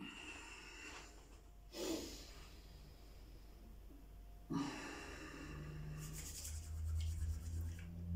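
A man breathing forcefully, several loud breaths in and out, the last few seconds a fast pulsing series of breaths. A low droning tone builds under them toward the end.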